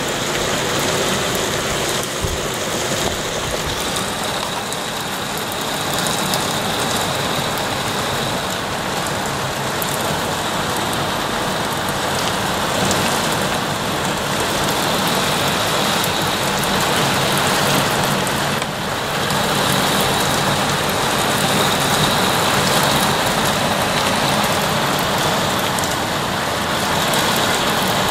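Very heavy rain shower falling steadily, a dense even hiss.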